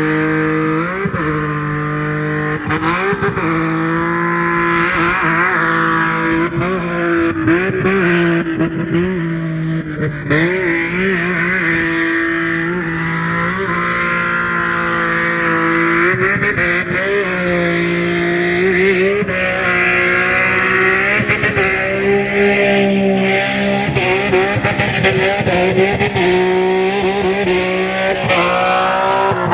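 A 1977 sedan's engine held at high revs, its pitch wavering up and down as the throttle is worked, with tyres squealing through the slides of a drift.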